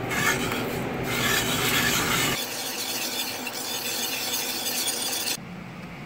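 Metal wire whisk scraping and swishing around a stainless steel saucepan, stirring sugar into orange juice and water for cranberry sauce. It goes on for about five seconds, then stops.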